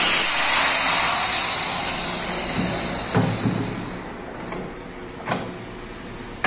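Angle grinder grinding a steel motorcycle exhaust pipe clamped in a bench vise, its hiss fading out over the first few seconds as it stops. Then a few sharp metal knocks and clicks as the pipe is handled in the vise.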